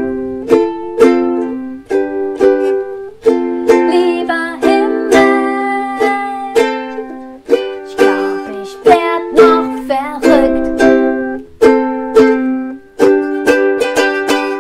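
Ukulele strummed in a steady rhythm, its chords changing every few seconds.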